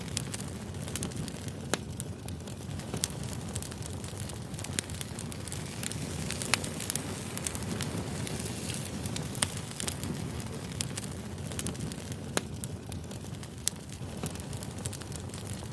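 Wood fire burning: sharp, irregular crackles and pops over a steady low rumble of the flames.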